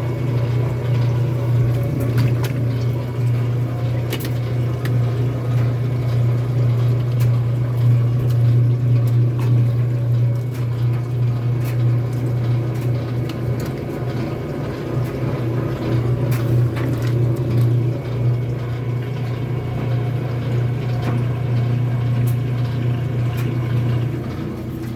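Kenmore washing machine draining: its pump gives a steady low hum over the sound of running water.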